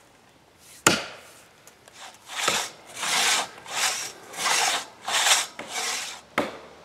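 A single axe blow biting into an oak trunk, then a two-person crosscut saw rasping back and forth through the oak in about six even strokes. A sharp knock comes near the end.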